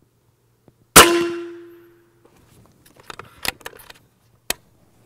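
A single shot from a Benjamin Bulldog .357 pre-charged pneumatic air rifle about a second in: a sharp crack followed by a ringing tone that fades over about a second. Then a run of metallic clicks as the side cocking lever is worked to cycle the next bullet, ending in one sharp click.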